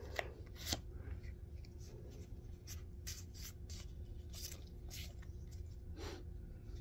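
Pokémon trading cards handled in the hands and slid against one another: faint, scattered flicks and rustles of card stock, with a couple of sharper snaps near the start.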